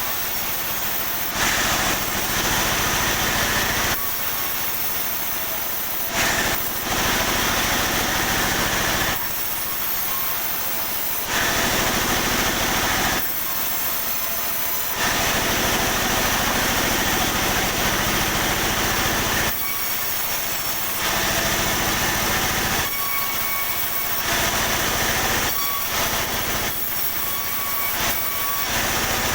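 Sawmill saw cutting pine timber in repeated passes of a few seconds each, the sound rising into a harsh hiss during each cut and dropping back to the blade running free between cuts, over a steady motor hum.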